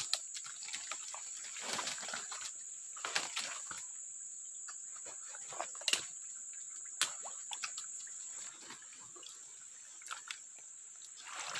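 A steady high-pitched insect drone that fades out about eight and a half seconds in, with scattered rustles and snaps of footsteps through leaf litter and tangled roots.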